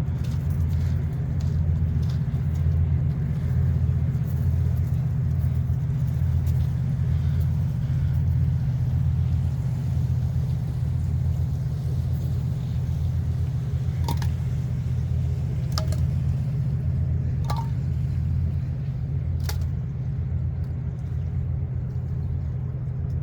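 Tugboat's diesel engine droning low and steady with a slow, even pulse as it works along the river. A few short sharp clicks come over it in the second half.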